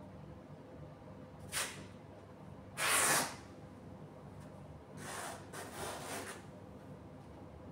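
Cloth rustling as a fabric cover is pulled and tucked along the edge of a bed base: a brief scrape, then a louder half-second rustle about three seconds in, then rougher rustling around five to six seconds in.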